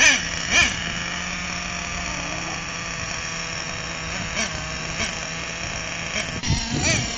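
HPI Savage X 4.6 nitro RC truck's small glow engine idling steadily. It is blipped twice right at the start and briefly again near the end.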